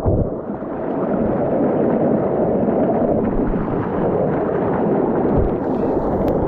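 River rapids: whitewater rushing over rocks in a loud, steady roar.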